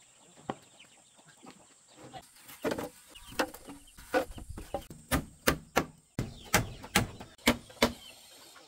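A series of sharp knocks that grow louder and come about two or three a second in the second half, with chickens clucking.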